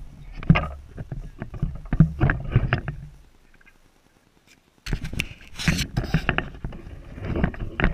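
Footsteps crunching through dry, dead grass, with rustling, knocks and low rumble from the camera being carried. It falls nearly quiet for a second and a half about three seconds in, then the rustling and crunching start again.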